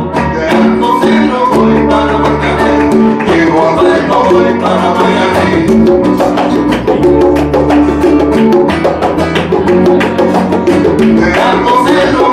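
Live salsa-style Latin band playing: congas struck by hand over a walking bass line and pitched backing instruments, in a steady rhythm.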